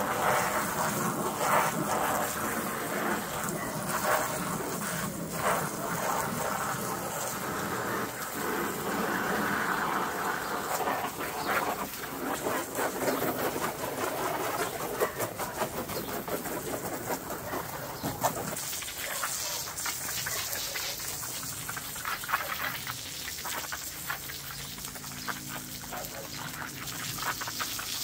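Jet of water from a garden-hose spray gun hitting the vinyl inner wall of an inflatable hot tub, a dense, steady splashing hiss. About two-thirds of the way in it turns thinner and more crackly as the jet plays onto the wet ground sheet.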